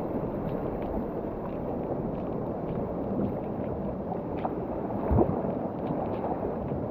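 Water sloshing and lapping at the shore, mixed with wind on the microphone, with scattered faint clicks and one louder knock about five seconds in.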